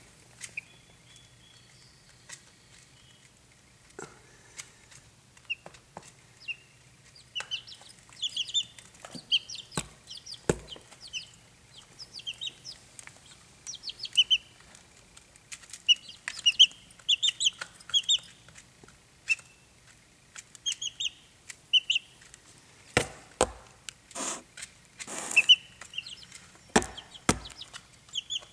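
Young chicks peeping: many short, high chirps, sometimes in quick runs, with a few sharp knocks and scrapes among them, loudest near the end.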